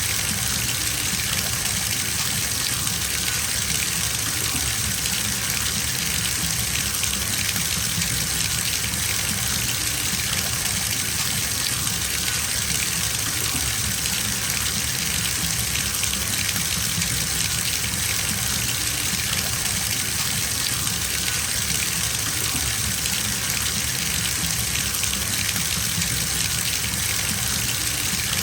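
Water gushing steadily from a bathtub tap into a filling tub, a constant hiss with a low rumble beneath.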